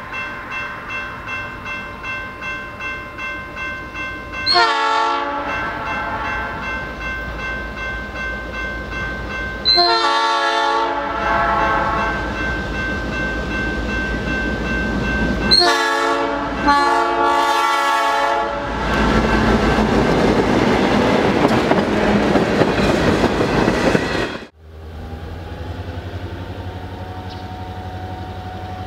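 Grade-crossing bell ringing about twice a second while an EMD GP9 diesel locomotive blows its horn in the long-long-short-long crossing signal. The locomotive then rumbles past over the crossing. Near the end the sound cuts off abruptly to a quieter, steady distant locomotive engine drone.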